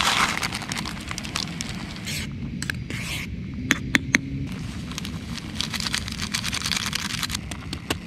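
Gas camping stove burning steadily under a pot of boiling instant noodles. A packet rustles as it is emptied in at the start, and a metal spoon clicks against the pot three times about four seconds in.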